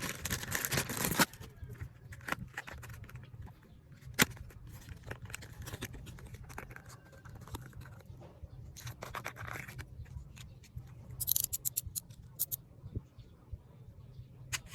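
Small packages of nail supplies being handled and opened by hand: rustling and scraping bursts, loudest at the start and again about nine seconds in, with scattered sharp clicks, a quick run of them near the end, over a steady low hum.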